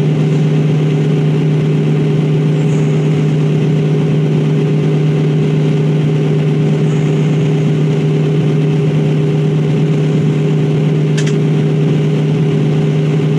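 Volvo EC220E excavator's diesel engine running steadily at idle, heard from inside the cab as a constant low hum. One short click about eleven seconds in.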